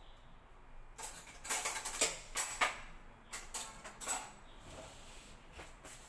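Metal kitchen utensils clattering and knocking off-camera in a quick irregular series for about three seconds, with a few fainter clicks near the end.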